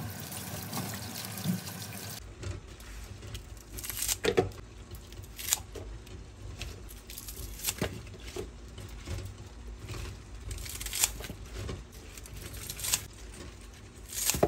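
Spinach leaves being rinsed by hand in a bowl of water in a stainless-steel sink: a steady wash of water for about two seconds, then scattered short splashes and drips as the wet leaves are lifted and dropped into a plastic salad-spinner basket.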